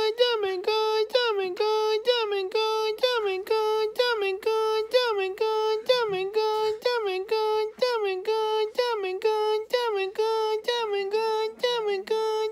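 A high-pitched, singing-like voice repeating one note in short, even syllables, about two to three a second, each with a brief dip in pitch.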